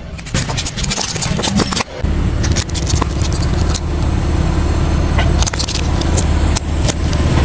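Plastic cracking and snapping under a slowly rolling car tyre on asphalt. Quick sharp cracks come in the first two seconds. After that the car's engine and tyre make a steady low drone, with scattered snaps as rows of plastic clothespins are crushed.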